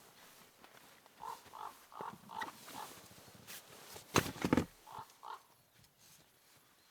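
Corvid calls: a run of short, rasping calls, with one loud, harsh screech about four seconds in, the kind jays make at a feeding site.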